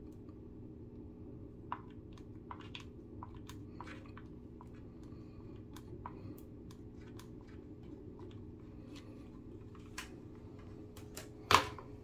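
Faint scattered clicks and ticks from a mini hot glue gun's trigger being worked as its nozzle pushes hot glue into a drywall hole, over a steady low hum. One sharp knock near the end.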